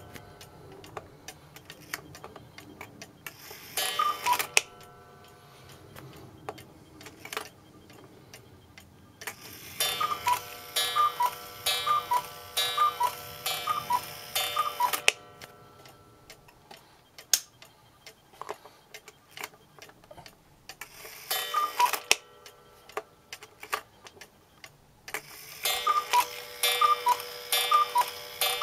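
30-hour German cuckoo clock ticking steadily. Several times its cuckoo calls, two-note pipe calls in bursts: briefly about 3 s in, a longer run between about 10 and 15 s, briefly again past 21 s, and once more near the end.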